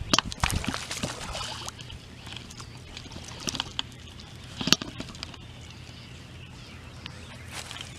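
Scattered knocks and handling noises in a small fishing boat, thickest in the first two seconds, with one sharp knock a little before five seconds in, over a steady low hum.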